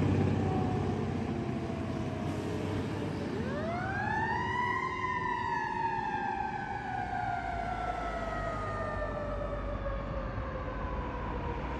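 Fire engine's siren winding up steeply over about a second and a half, then slowly coasting down in pitch for several seconds, in the rise-and-long-fall pattern of a mechanical siren, as the truck moves away. The truck's engine noise fades in the first second.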